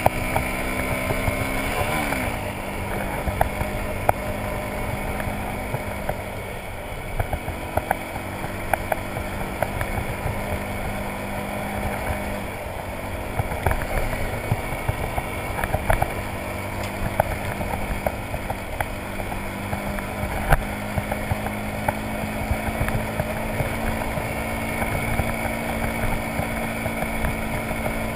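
Motorcycle engine running steadily while riding a gravel road, its pitch dipping and climbing again a few times with throttle and gear changes. Scattered sharp clicks and knocks come from the rough surface.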